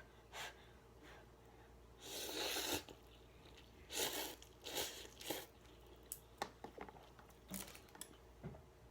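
Mouth sounds of someone eating spicy instant ramen noodles: a longer slurp about two seconds in, then a string of shorter slurps and chewing noises.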